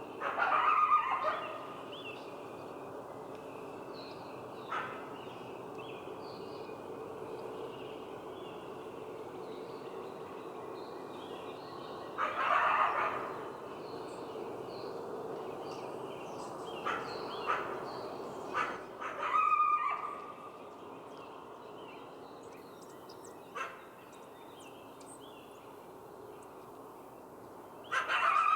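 Coyote calling in short bursts, a handful of times with long pauses between, over a steady background noise.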